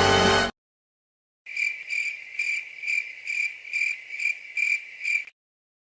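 Crickets-chirping sound effect: a high chirp repeating about two and a half times a second, starting about a second and a half in and cutting off suddenly. Before it, music ends abruptly just after the start.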